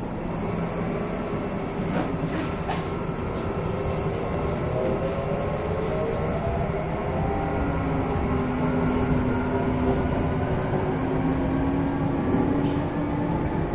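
Série 9500 electric multiple unit heard from inside the passenger car while under way: a steady rumble of the wheels on the track, with a whine from the traction equipment that glides up and down in pitch and then holds steady.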